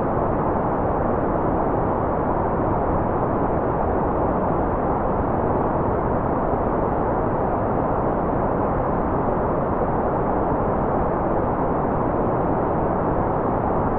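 Steady, unchanging white noise for focus or sleep: an even hiss with its high end rolled off, so it sounds muffled rather than bright.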